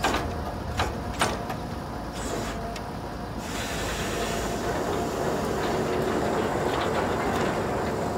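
Borewell drilling rig's engine running steadily, with a few sharp knocks in the first second or so. About three and a half seconds in, a steady hiss sets in over the engine.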